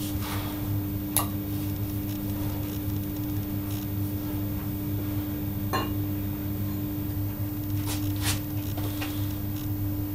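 Sharp metal clinks of iron weight plates and a steel grip-training handle knocking together as the weight is handled: half a dozen separate clinks, two of them close together about eight seconds in, over a steady low hum.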